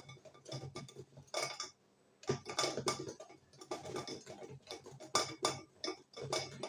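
A utensil stirring a runny batter in a bowl by hand, with irregular clinks and scrapes against the bowl and a short pause about two seconds in.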